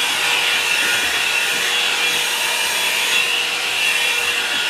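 Handheld hot air brush blowing steadily, its bristled round barrel rasping as it is drawn through hair.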